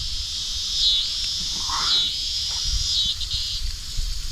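Steady high chorus of night insects such as crickets, with short repeating trills about once a second, and one brief lower call about two seconds in. A low rumble runs underneath.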